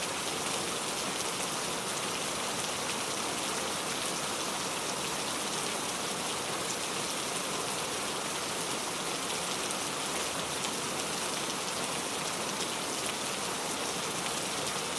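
Steady rain falling, a constant hiss with many individual raindrops pattering on a surface.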